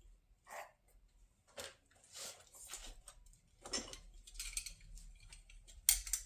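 Scattered small clicks, taps and scrapes of hand tools and metal parts being handled, growing busier toward the end with a sharper click just before it ends.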